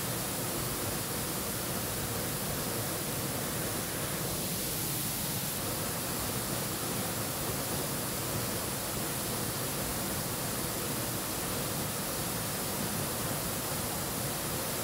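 Steady rushing roar of a waterfall, an unbroken wash of white water.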